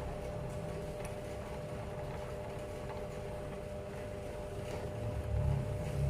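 A few faint clicks of small metal parts being handled while the snap-button press's die is changed, over a steady low hum.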